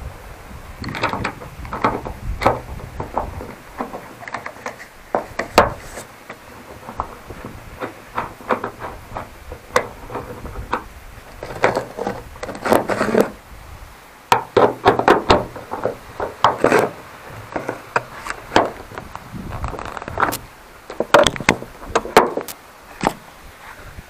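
Irregular clicks, taps and scrapes of a plastic shark-fin antenna cover being handled and fitted against its base on a car roof.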